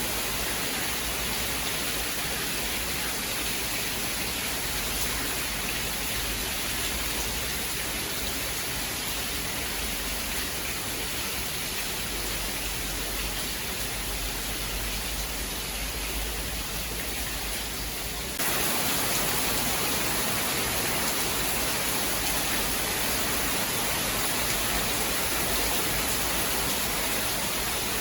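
Steady, dense rain hiss with no thunder. About eighteen seconds in it jumps abruptly to a louder, brighter hiss, as at an edit between two rain recordings.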